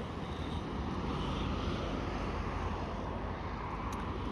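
Steady road noise of a car on the move: a low rumble with an even hiss over it.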